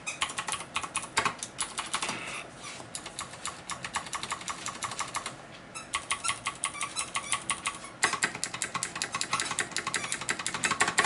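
Fast typing on a Deck Hassium Pro mechanical keyboard with clicky Cherry MX Blue switches: a quick stream of sharp key clicks, with a short pause about five seconds in.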